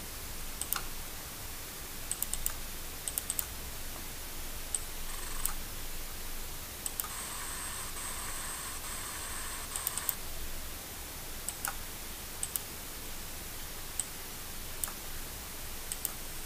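Sharp computer mouse and keyboard clicks, scattered singly and in small clusters, over a steady faint hiss. From about seven to ten seconds a faint steady high whine sounds.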